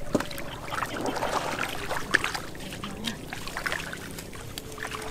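Shallow muddy water splashing and sloshing in irregular small splashes as stranded catfish thrash at the surface and people wade through it.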